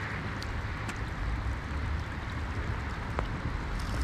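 Steady outdoor hiss of a flowing river in light rain, with a low rumble of wind on the microphone and a few faint ticks.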